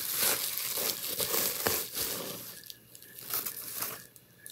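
Packaging crinkling and rustling as it is handled and unwrapped, loudest over the first two seconds or so, then quieter rustles and a few light clicks.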